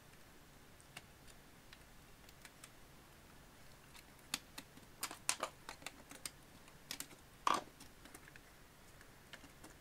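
Plastic case of a 2005 Mustang instrument cluster clicking and snapping as its clips are pried apart and the housing halves separated: scattered sharp clicks, bunched in the middle, the loudest about seven and a half seconds in.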